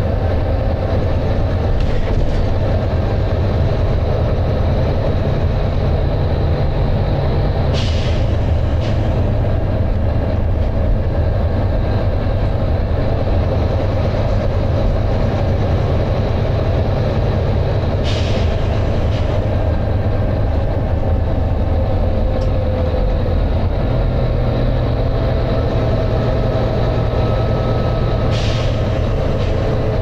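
Volvo B9TL double-decker bus's diesel engine working hard at road speed, heard from inside the passenger cabin as a loud, steady low drone. Three short hisses of air from the bus's air system come about ten seconds apart.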